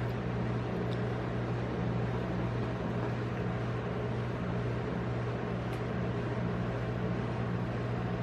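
Steady low hum of a rolled-ice-cream machine's cold plate, its refrigeration compressor running.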